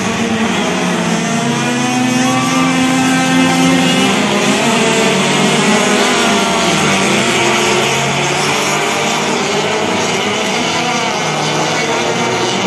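Race car engines running hard, several at once, their pitch rising and falling as they accelerate and ease off.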